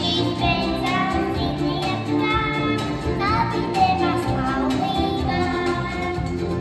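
A young girl singing a Latvian children's pop song into a handheld microphone over instrumental accompaniment.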